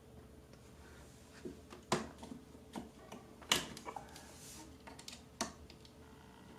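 A few sharp plastic clicks and knocks as DDR4 RAM sticks are pressed down into the motherboard's memory slots and the slot latches are pushed shut by hand; the two loudest come about two and three and a half seconds in.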